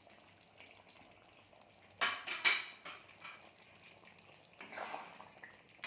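A spoon stirring and scraping through chicken curry in a pan, with a quick run of loud scrapes about two seconds in and a softer one near the end, over a faint sizzle from the cooking.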